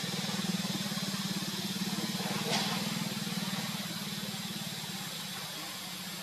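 An engine idling steadily, a low even pulsing hum that fades a little in the second half, with one brief sharp sound about two and a half seconds in.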